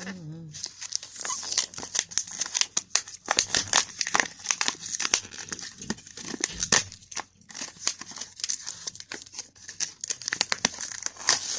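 Food packaging being crinkled and torn open by hand: a dense, irregular run of crackling rustles.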